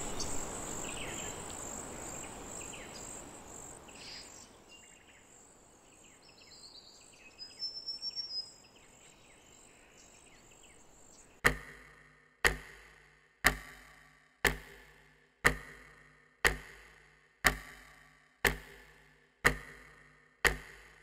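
Outdoor evening ambience of insects chirping fades away over the first few seconds, with a short burst of chirping about eight seconds in. Then, starting about halfway, a sharp deep tick repeats evenly once a second, ten times.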